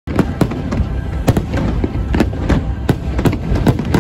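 Large fireworks display: many sharp bangs at irregular intervals over a continuous low rumble.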